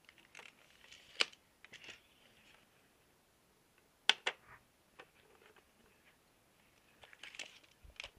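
Handling noises as a white PVC air vent and a tape measure are worked against a wall: light rustling broken by sharp plastic clicks and taps, one about a second in, two close together around four seconds, and one near the end.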